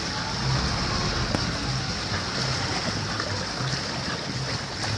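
Water rushing and splashing past the hull of a tour boat under way, with the boat's engine a low, uneven hum underneath.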